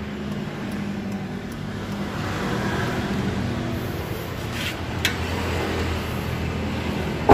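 Steady low hum of an engine running nearby, with two light clicks about two-thirds through, then the Daihatsu Ayla's door slammed shut with one sharp thud right at the end.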